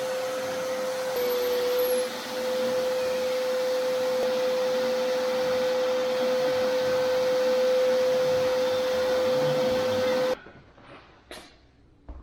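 Power saw running steadily as it cuts through a kitchen cabinet cover panel, a steady whine over the noise of the cut. It stops abruptly about ten seconds in, leaving a few faint knocks.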